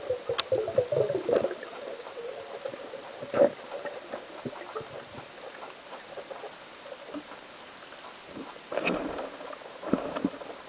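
Underwater sound through a diving camera in a river: a wavering hum that fades in the first second and a half, scattered faint clicks and crackles, then a sharp knock a little past three seconds in and two louder rough bursts near the end.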